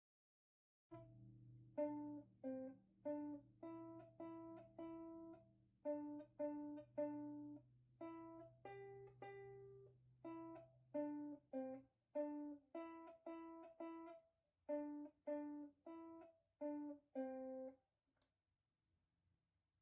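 Background music: a strummed ukulele or acoustic guitar playing short plucked chords at a steady beat, ending a couple of seconds before the end.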